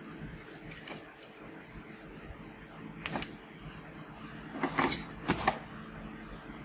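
Handling noise: a few short rustles and knocks as bundled wires and a paper notebook are moved around on a workbench, the loudest two about five seconds in.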